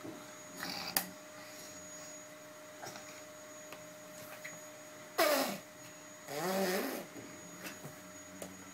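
A toddler's wordless vocal sounds: a short falling squeal about five seconds in, then a longer wavering babble. A faint steady electrical hum runs underneath, and there is a sharp click about a second in.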